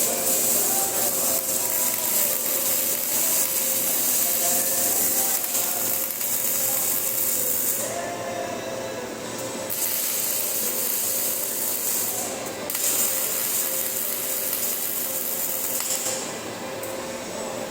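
MIG welding arc crackling steadily. It stops for a second or two about halfway through, breaks briefly again a few seconds later, and stops near the end.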